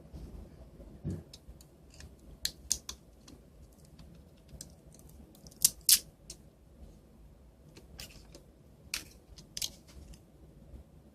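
Irregular sharp clicks and taps of small hand tools and phone parts being handled while a Palm Treo 755p smartphone is taken apart. The loudest two come close together about six seconds in.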